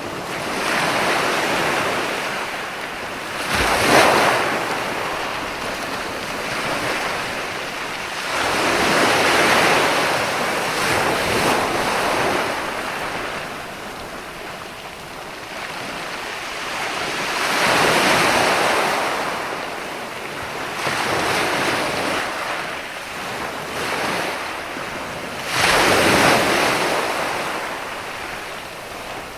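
Ocean waves surging and breaking on a shore, the surf swelling and ebbing every several seconds. The sharpest breaks come about four seconds in and again near the end.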